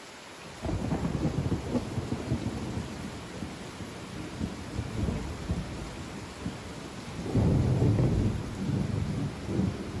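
Rolling thunder: a deep rumble breaks in suddenly about half a second in, rumbles on unevenly and swells again near the end, over a steady hiss.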